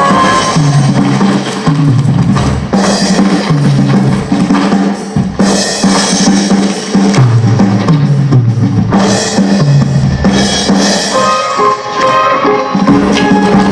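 Instrumental music from a live stage band: a drum kit with snare and bass drum over a repeating bass line.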